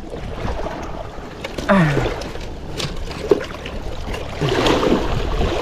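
Wind on the microphone and choppy lake water lapping at the bank, with short rustles and knocks as a large silver carp is handled into a mesh landing net; a brief grunt-like voice sound about two seconds in.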